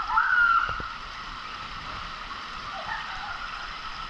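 Steady rush of water sloshing along a water slide. In the first second there are a few short sounds that glide up and down in pitch.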